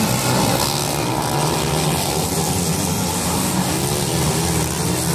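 Several motocross dirt bike engines racing together, their overlapping pitches rising and falling as the riders open and close the throttle.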